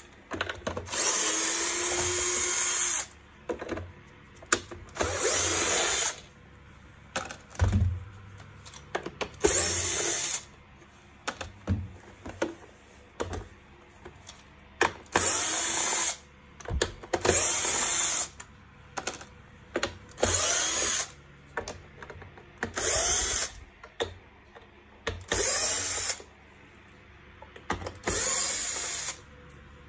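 Electric screwdriver with a Torx 20 bit running in about ten short bursts, each whirr backing a screw out of the vacuum cleaner's plastic housing, with small clicks and knocks of parts being handled between the bursts.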